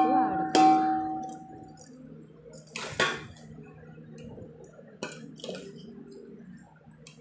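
Metal bowl rung by two quick strikes at the start, each ring holding two steady tones and fading over about a second and a half, followed by a sharp knock about three seconds in, another about five seconds in, and a few light clinks.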